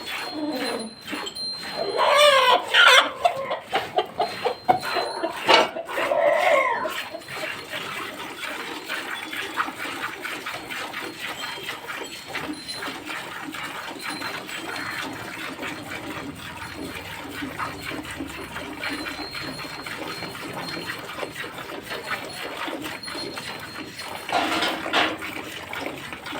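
Farmyard animal calls, twice in the first seven seconds, each rising and falling in pitch, over a steady background; one more call comes near the end.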